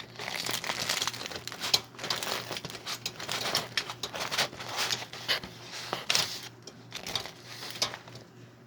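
Irregular crinkling and crackling that keeps going with many sharp little crackles, as something crinkly is handled.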